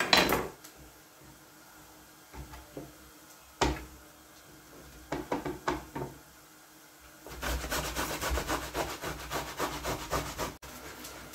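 A tomato being grated on a stainless steel box grater: about three seconds of quick rhythmic rasping strokes that cut off abruptly near the end. Before it, a knife knocks on the plastic chopping board at the start, and there is a second hard knock a few seconds in.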